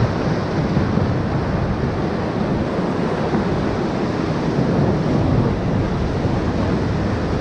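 Whitewater rapids rushing and churning around a raft, a loud, steady wash of water noise.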